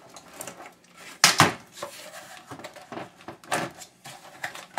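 Metal parts being worked loose from a power washer on a workbench: two sharp metallic clanks a little over a second in, then scattered lighter knocks and clicks.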